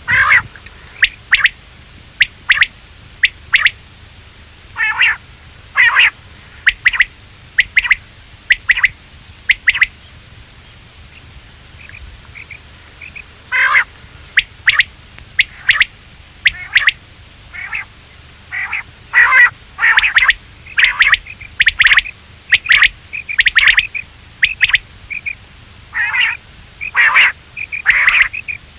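Quail calling: short, sharp calls repeated in quick bursts, with a lull of a few faint notes about ten seconds in, then denser, overlapping calling near the end.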